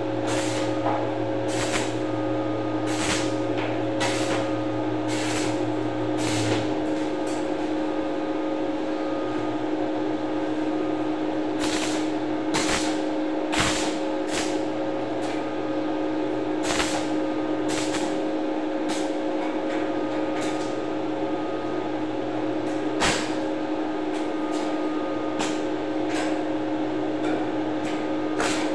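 Arc welding on a steel stair railing: a steady electrical hum with a hiss, broken by scattered sharp pops and clicks.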